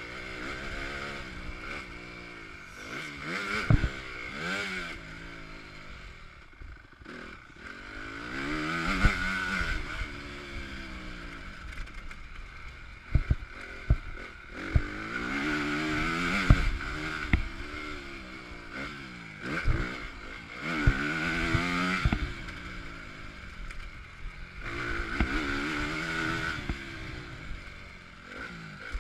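A 2015 Honda CRF250 four-stroke single-cylinder motocross bike's engine revving up and dropping off again and again as the rider works the throttle, heard onboard. Several sharp knocks cut through it along the way.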